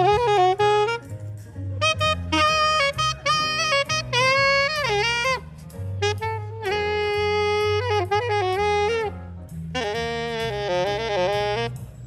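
Saxophone playing a jazz melody over a low bass line, in short phrases of held and bent notes with brief pauses between them, with a quick wavering run near the end.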